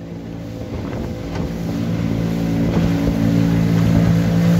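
A boat's motor running steadily, getting louder over the first few seconds, with a low rush of wind and water underneath.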